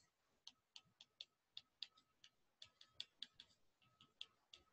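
Faint, irregular clicks of a stylus tip tapping and dragging on a tablet's glass screen while handwriting, about three to four clicks a second.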